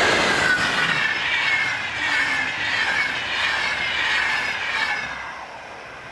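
An electric-hauled double-deck passenger train running past at speed, with wheels and rails rushing and several whining tones sliding down in pitch as it goes by. It is loudest at first and fades away near the end.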